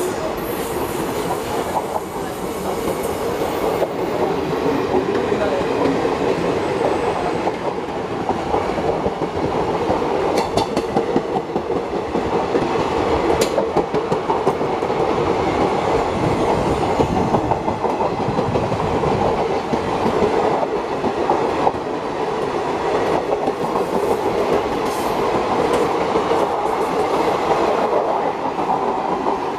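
Blue sleeper-class passenger coaches of an Indian Railways express rolling past at speed: a steady, loud run of wheel-on-rail noise and coach rattle, with a sharp click about halfway through.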